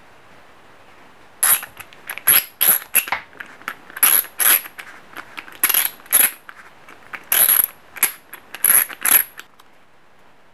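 Sharp metallic clicks of metal hand tools being handled, coming in short irregular clusters of two to five. They start about a second and a half in and stop about a second before the end.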